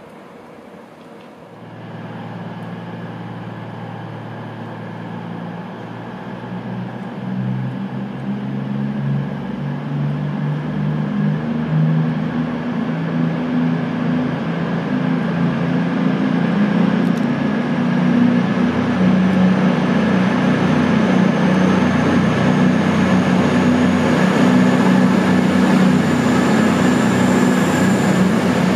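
Diesel multiple-unit train running along the platform close by, its underfloor diesel engines droning steadily and growing louder. Near the end a high whine rises as a CrossCountry Class 220/221 Voyager passes.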